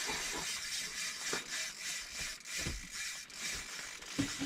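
A steady hiss with small irregular clicks and a few soft knocks throughout.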